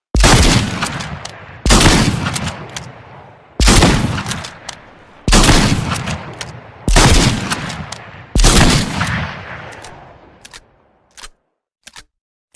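Lever-action shotgun sound effect: six loud shots about one and a half seconds apart, each fading out slowly, with the short metallic clicks of the lever being cycled between shots and a couple more clicks near the end.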